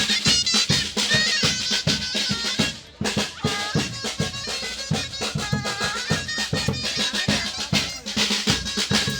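Music with fast, busy drumming under a wavering melodic line, with a brief break in the sound about three seconds in.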